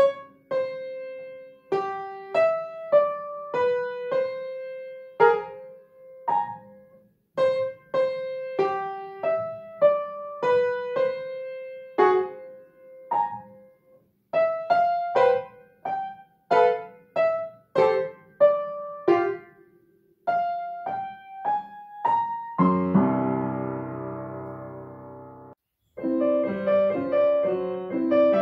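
Solo upright piano playing a melody of separate, detached struck notes, closing on a long held chord that is cut off abruptly. After a second's gap, a grand piano begins another piece with faster, fuller chords.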